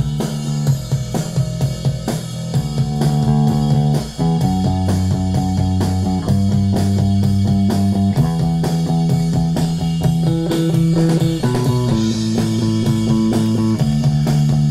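Recorded rock drum kit and electric bass tracks playing back together. The bass holds long notes that change pitch every second or two over a steady drum beat, in a plain rock style.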